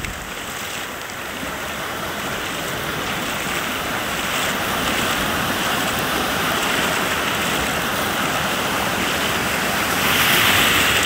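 Ocean surf washing through the shallows: a steady rush of breaking waves that swells near the end.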